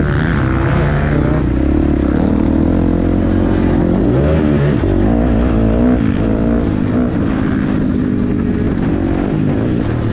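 Motocross dirt bike engine under hard riding, its pitch rising and falling repeatedly as the throttle is worked and gears change, heard close up from the rider's helmet.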